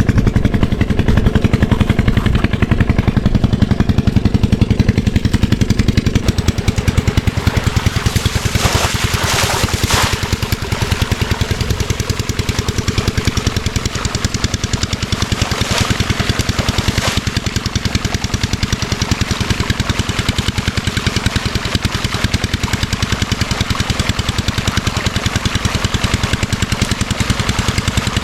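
8 hp single-cylinder diesel engine of an irrigation water pumpset running steadily with a rapid, even knock of its firing strokes. Twice, at about 9 and 16 seconds in, a brief hiss rises over it.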